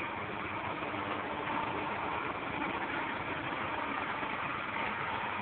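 An engine idling steadily, a continuous even hum with no change in pitch.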